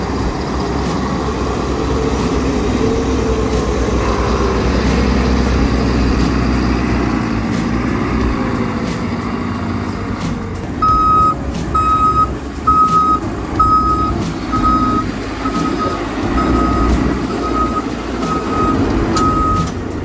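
JCB 3CX Stage V backhoe loader's diesel engine and hydraulics working as the front loader bucket moves soil. About halfway through, its reversing alarm starts, a high beep about once a second.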